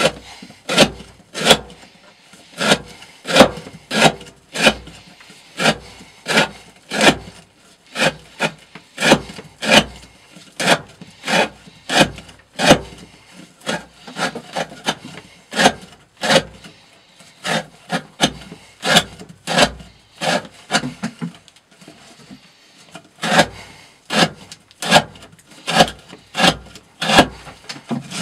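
S35VN steel knife blade shaving curls off the edge of a wooden board in quick, repeated strokes, about one and a half a second, each a short scraping cut through the wood, with a brief pause about two-thirds of the way through.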